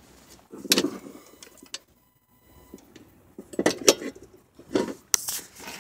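Several irregular clinks and knocks of an aluminium heater core and its metal tubes being handled and set against a car's floor pan.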